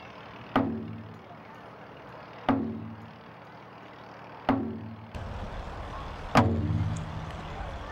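Large taiko drums on stands, struck hard with wooden sticks: four heavy hits about two seconds apart, each a deep boom that rings on and fades.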